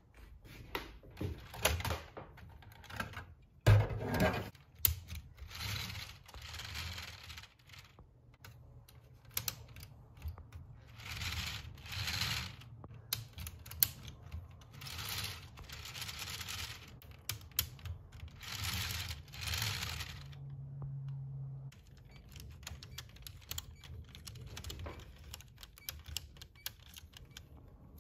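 Plastic LEGO Technic gearbox parts clicking and rattling as the truck's four-speed transmission is shifted by hand through its gears, with four longer bursts of whirring from the turning geartrain.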